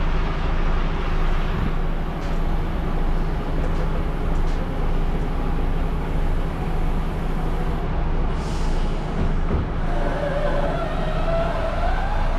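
Truck's diesel engine idling with a steady low hum. A short hiss comes about eight seconds in, and a wavering higher tone joins about ten seconds in.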